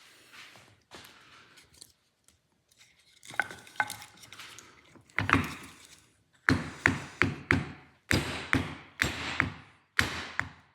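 Hammer blows on a wooden block, driving a new slotted ABS reluctor ring onto a drive shaft. There are a few light taps, then from about halfway a steady run of sharp strikes, roughly two a second, each with a short metallic ring.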